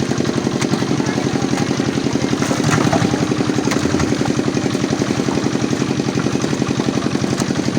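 A small engine running steadily at idle, with a rapid, even putter.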